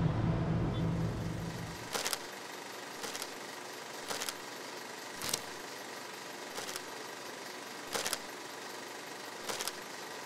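Low city-traffic rumble that dies away after about two seconds, then seven short sharp clicks, one roughly every second or so.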